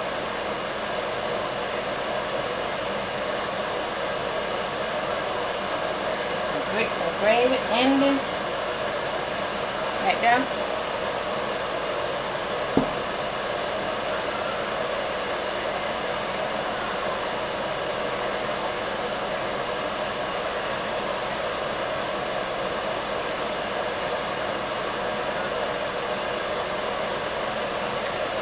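Steady blowing noise of a fan or air handler running throughout, with two brief vocal sounds about seven and ten seconds in and a single sharp click a few seconds later.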